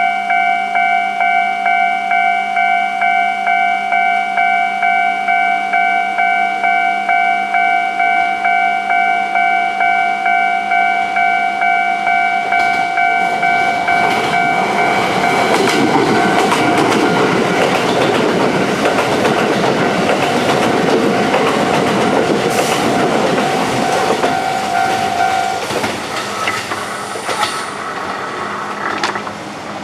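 Japanese level-crossing warning bell ringing in a quick, even rhythm. Midway through, a Kintetsu express of a 5800-series and a 1201-series electric train set runs through the crossing, its wheels clacking over the rail joints. The bell stops near the end as the train clears, and the running noise fades.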